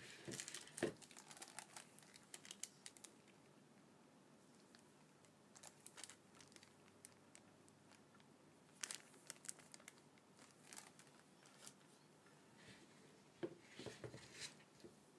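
Thin clear plastic bag crinkling as it is handled, in scattered bursts of crackles, loudest just after the start and again near the end.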